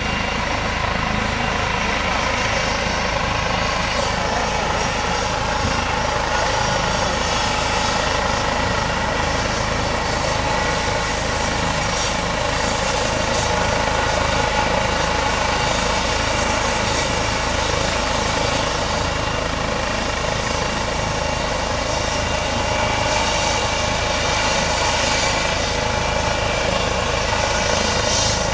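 Eurocopter EC135 helicopter running on the ground before takeoff: an even turbine whine of several steady tones over rotor and engine noise.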